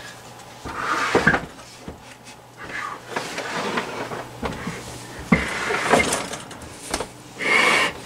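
A small refrigerator being turned around by hand on a wooden workbench: a series of scrapes and knocks, with a sharp knock a little after the middle and a longer scrape near the end.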